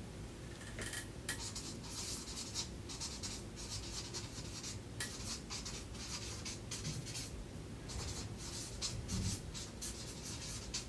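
Someone writing by hand: a quiet, irregular run of short scratchy strokes.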